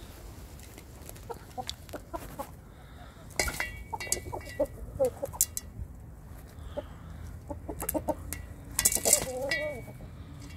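Aseel chickens clucking while they feed, with two louder calls, one about a third of the way in and the loudest near the end. Between them come scattered sharp clicks of beaks pecking grain from a steel pan.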